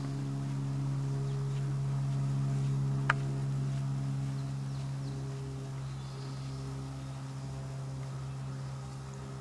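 A steady low buzzing hum, with one sharp click about three seconds in.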